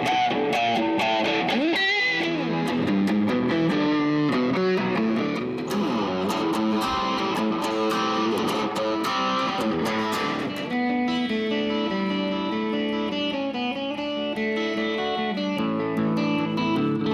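Custom Gibson 335 electric guitar playing a lead line with bent notes and vibrato, settling into longer held notes in the second half.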